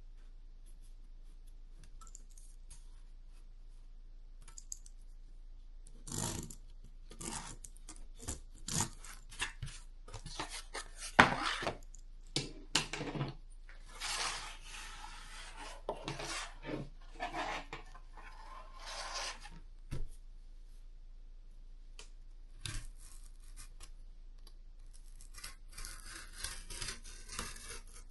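Cardboard being cut and handled: irregular scraping and rubbing strokes that start about six seconds in, pause briefly, then resume near the end.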